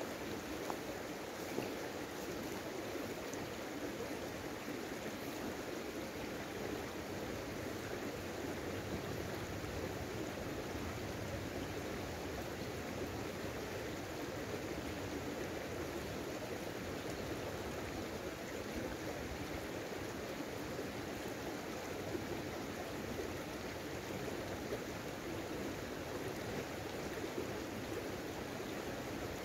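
Small, shallow stream running over stones: a steady, even rush of water.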